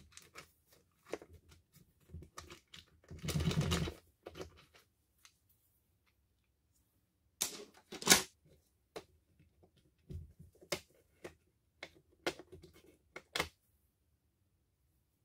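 Scattered clicks and knocks of a cordless drill's parts and tools being handled on a workbench, with a brief rattling stretch about three seconds in and a loud clack about eight seconds in.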